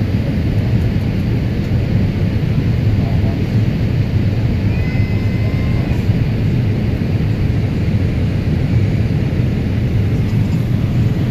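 Steady low rumble of airflow and engines inside a Boeing 787 Dreamliner's cabin on approach with flaps extended.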